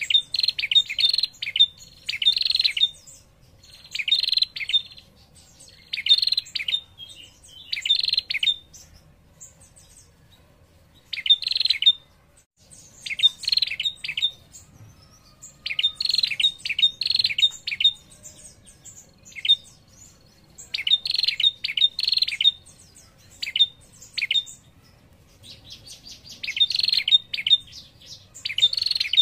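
A female tailorbird (prenjak) gives its rapid, dry chattering trill, the 'ngetir' call, over and over. Each burst lasts about half a second and the bursts come in runs with short pauses. This is the female's call that draws a male to answer.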